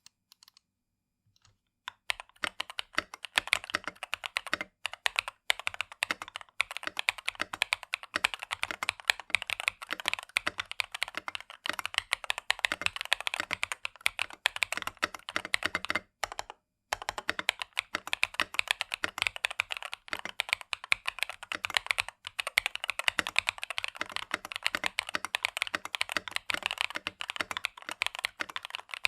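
Typing on an Epomaker Brick 87 mechanical keyboard with Epomaker Peace Lily linear switches on a steel plate: a dense, continuous run of clacky keystrokes that begins about two seconds in, with a brief pause about halfway.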